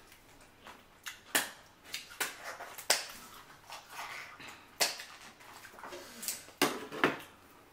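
Boiled lobster shell being cut with kitchen scissors and king crab shell being cracked and pulled apart by hand. About half a dozen sharp cracks and crunches, with softer rustling between them.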